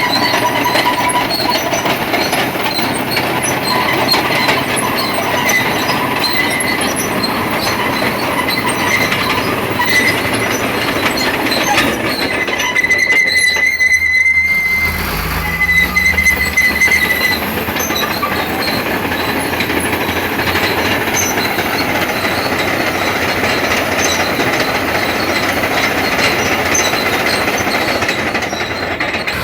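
Caterpillar D7R crawler bulldozer running, its steel tracks clanking with a high squeal that comes and goes. About halfway through the noise drops for a moment and a low engine note rises.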